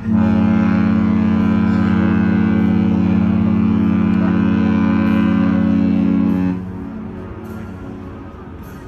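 A cruise ship's horn sounds one loud, deep, steady blast lasting about six and a half seconds, then stops.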